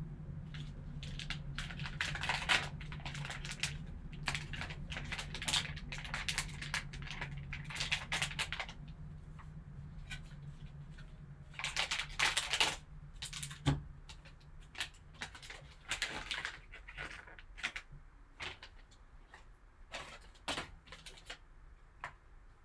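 Plastic packaging of a sealed trading-card pack rustling and crinkling as it is opened by hand, in irregular bursts, with a single sharp click about 14 seconds in. A steady low hum sits underneath and fades out around the middle.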